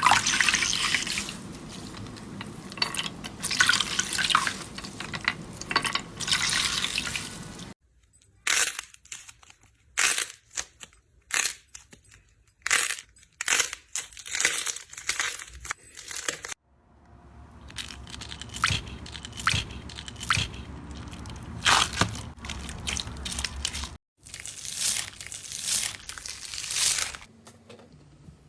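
Slime being squeezed, poked and stretched by hand, making crunchy crackling and short wet pops and clicks. The sound changes abruptly several times, like separate clips: dense crackling first, then spaced sharp pops, then crackling with pops again.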